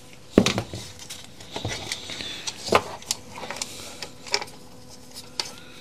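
A sharp knock near the start as a rubber mallet taps the plastic housing of a Makita UC3541A electric chainsaw, then scattered knocks and light clicks of plastic and metal parts being handled as the motor stator is set into the housing.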